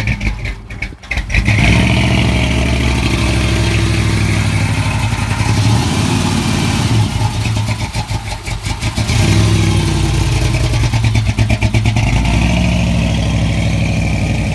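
A 1965 Mercury Comet's engine running shortly after a cold start in freezing weather, its sound dipping briefly about a second in and again around eight seconds before picking back up.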